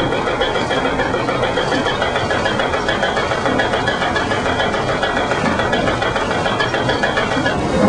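Water-powered sawmill machinery running steadily, with a fast, even rhythmic knocking.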